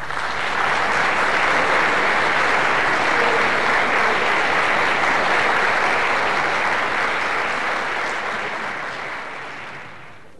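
Audience applauding: the clapping breaks out abruptly, holds steady, then dies away over the last couple of seconds.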